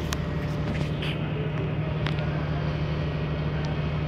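Steady low drone of ship's machinery heard from on deck, one low hum held unchanged under an even hiss.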